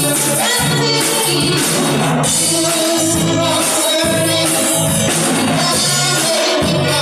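A live band playing a rock cover: a woman singing lead into a microphone over electric guitars and a drum kit, loud and unbroken.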